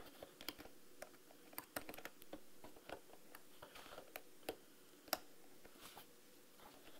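Faint, scattered small clicks and taps of fingers and fingernails handling an opened plastic car key fob and its circuit board, with a few sharper clicks between about four and a half and six seconds in.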